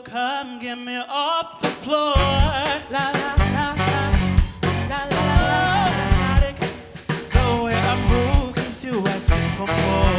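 Live band music, pop-gospel-jazz fusion: a wavering lead melody starts after a short break, and the drums and bass come in about two seconds in, playing a steady beat.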